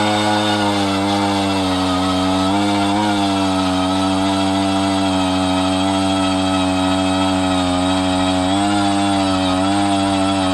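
Eskimo Mako 43cc two-stroke gas ice auger running at high speed while drilling a test hole through the ice. Its engine note holds steady, sagging slightly in pitch a few times, about three seconds in and twice near the end.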